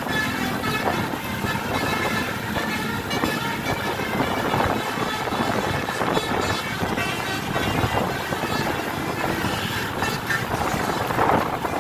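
Multi-note Basuri telolet bus horn playing a tune of changing notes, over road and traffic noise.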